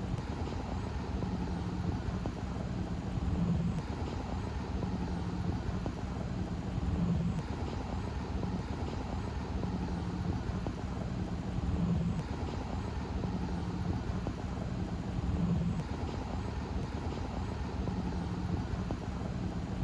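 A steady low machine hum over a constant rushing background, swelling slightly about every three and a half to four seconds.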